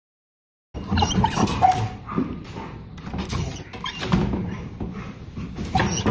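A young pit bull mix whining and yipping in a kennel pen, with knocks and clatter as he jumps about, starting about a second in. The sound of a frustrated, over-excited dog.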